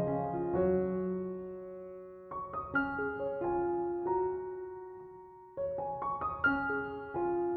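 Background piano music: slow phrases of notes struck together that ring on and fade, a new phrase starting about two seconds in and again past the middle.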